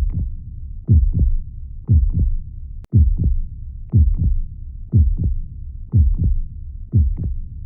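Heartbeat, a steady double thump (lub-dub) about once a second over a low rumble, with one brief dropout about three seconds in.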